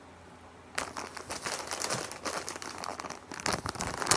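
Plastic candy bag crinkling as it is handled, starting about a second in and loudest near the end.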